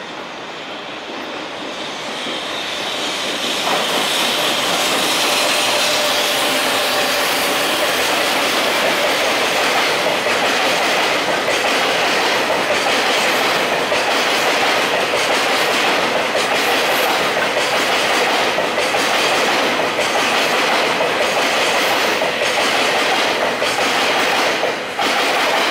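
JR Freight EF210 electric locomotive hauling a long freight train of tank wagons past at close range: the sound builds over the first few seconds as the locomotive comes near, then settles into a steady loud run of wheels clattering over the rail joints as the tank cars roll by.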